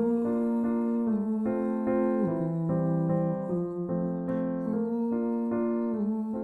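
Background music: a song's instrumental passage, with piano playing sustained chords that change every second or so.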